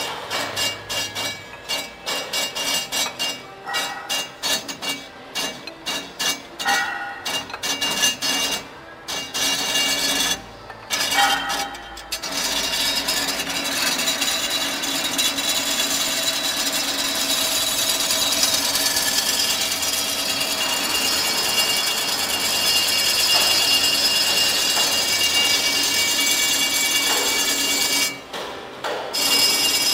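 FDY-6L rod straightening machine working a steel rod through its straightening rollers: irregular knocking and rattling for about the first twelve seconds, then a steady loud scraping whir as the turning rod runs through and rubs in its guide, which drops away near the end.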